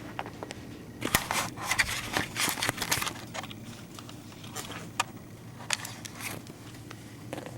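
Irregular clicking, scrabbling and scraping as cats chase a remote-control toy car across the floor, busiest about a second in, then a few scattered clicks.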